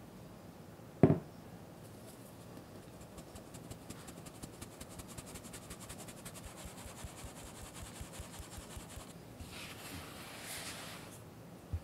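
A sharp knock about a second in, then a stainless mesh sieve shaken over a glass bowl: a fast, even, fine rattling as flour and cocoa powder sift through. Near the end a silicone spatula scrapes and cuts through the dry flour in the bowl.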